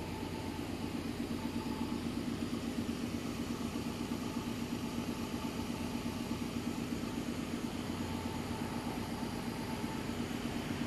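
An engine running steadily at idle, a low, even hum with a fast flutter.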